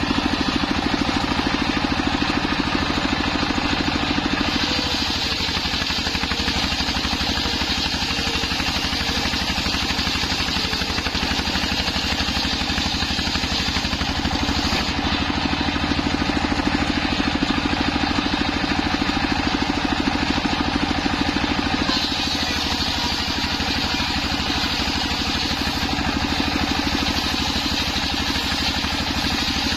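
Stationary single-cylinder diesel engine running steadily and belt-driving a circular saw blade, which is ripping through boards of waru (sea hibiscus) wood.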